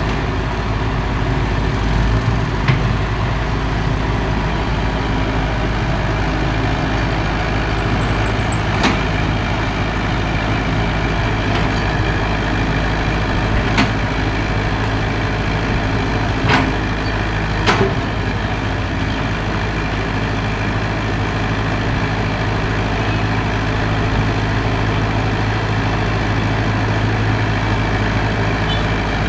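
Heavy diesel engine of earthmoving machinery running steadily at a low, even speed, with about five sharp knocks scattered through it.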